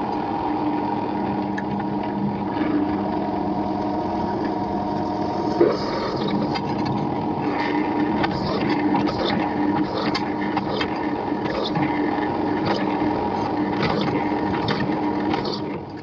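An electric power tool's motor running steadily under work, with scattered light clicks and knocks, winding down at the very end.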